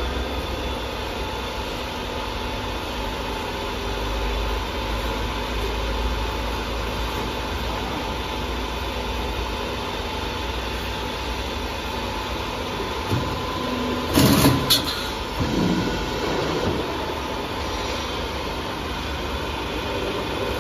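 Double-layer roll forming machine for roof tiles and corrugated roof sheet running with a steady mechanical hum. A brief loud burst of noise comes about two-thirds of the way through.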